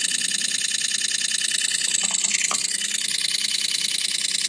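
iPhone 8 clicking rapidly and without pause, like a camera shutter going over and over again: the shutter seems stuck after a photo was taken.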